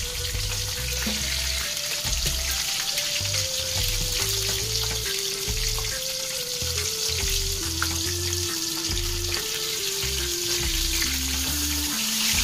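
Whole porgy shallow-frying in hot oil in a cast-iron skillet, a steady crackling sizzle. Under it is background music of slow single held notes stepping down in pitch.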